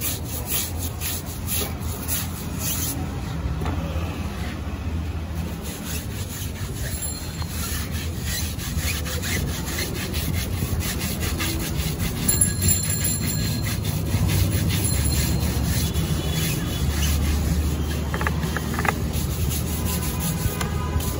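Stiff plastic scrub brush scrubbing soapy foam on a motorcycle's bodywork and front tyre in quick, repeated back-and-forth strokes, over a steady low rumble.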